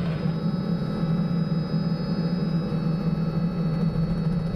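Robinson R66 Turbine helicopter in flight, heard from inside the cabin: a steady low drone from the rotor and turbine, with a faint high whine above it.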